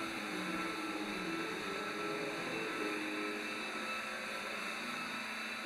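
Electric rotary sander running steadily, worked along a new Douglas fir hull plank to clean grime off its surface.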